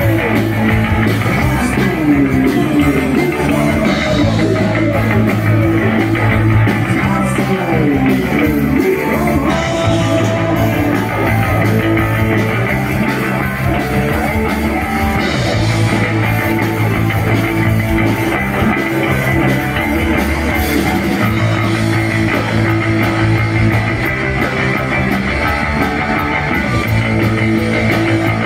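Punk rock band playing live: electric guitars, bass and drums in a passage with no recognisable sung words, with notes sliding down in pitch again and again over the first several seconds.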